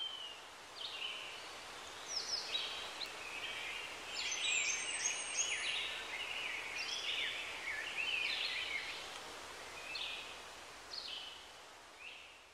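Several songbirds chirping and singing in quick short calls and trills over a steady background hiss, thinning out and fading away near the end.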